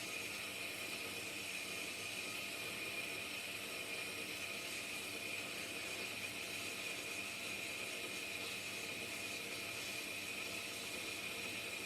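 Pilous semi-automatic metal-cutting bandsaw running its blade through 5-inch solid steel round bar: a steady whir with a high, even hiss of the blade in the cut.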